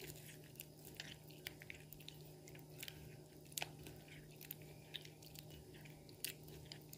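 A hand squeezing soaked tamarind pulp in water in a steel bowl: faint, irregular wet squelches and small clicks.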